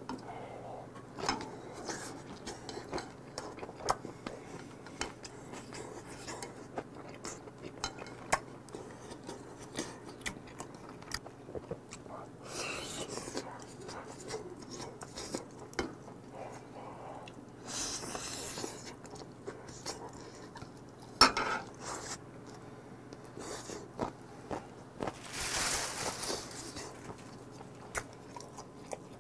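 Eating at the table: chopsticks and a fork clicking and scraping against the dish while picking boiled chicken out of the soup, with chewing. There is one loud clack a little past two-thirds of the way through, and a few brief hissing noises.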